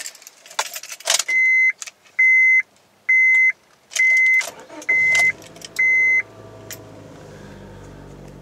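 Ignition key rattling, then six evenly spaced dashboard warning chimes, about one a second. Near the fifth chime the 2001 Acura 1.7 EL's Honda D17 four-cylinder cranks briefly, fires right up and settles into a steady fast idle near 2,000 rpm.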